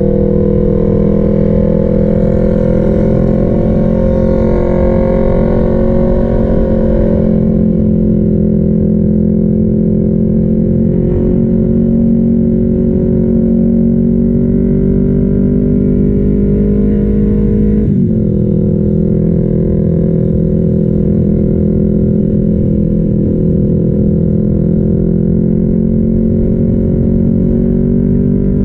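Sport motorcycle's engine running steadily at highway cruising speed, heard from on the bike, its pitch slowly climbing. It dips briefly about two-thirds of the way through, then climbs again.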